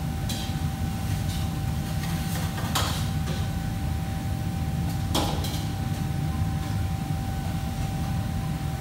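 Steady low rumble of a commercial kitchen, with a constant faint hum and a few sharp knocks and clatters scattered through it, the loudest nearly three seconds in and again about five seconds in.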